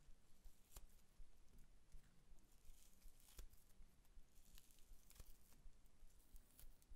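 Faint tearing and rustling as fingers pull apart pieces of fluffy slime, with a few sharp clicks spread through.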